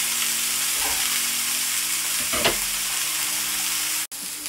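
Two ribeye steaks searing in a very hot frying pan, a steady sizzle, with a single light knock about halfway through. The sizzle cuts out for an instant near the end and comes back a little quieter.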